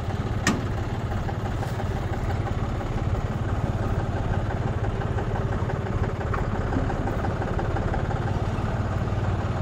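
Farm tractor's diesel engine running steadily close by, with an even firing rhythm and a strong low hum. A single sharp click sounds about half a second in.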